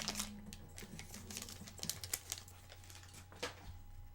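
Faint, scattered light clicks and rustles of trading cards being handled and flipped through, over a steady low hum.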